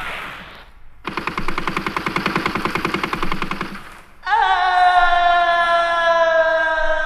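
Electronic sound effects in a reggae recording: a rapid rattling burst like machine-gun fire for about three seconds, then a long electronic tone that slowly sinks in pitch.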